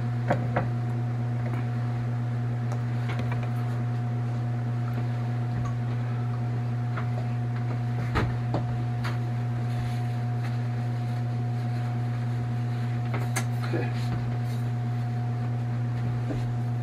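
Steady low hum of a running kitchen appliance, with a few light clicks and taps of kitchenware, the clearest about eight seconds in.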